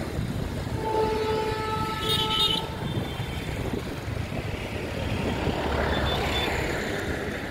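Railway locomotive horn sounding once, in the distance, for about two seconds. It is heard over a steady low rumble of noise from the approaching train and wind.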